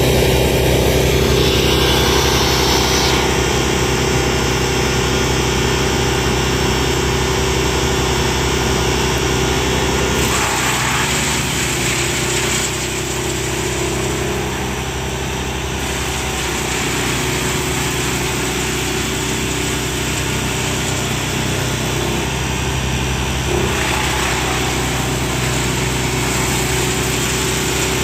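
Diesel engine of a mobile drum wood chipper running steadily, with a shift in its sound about ten seconds in.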